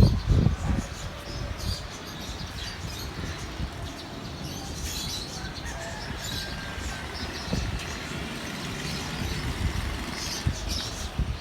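Small birds chirping intermittently in short high calls over a steady low rumble, which is louder for a moment at the start.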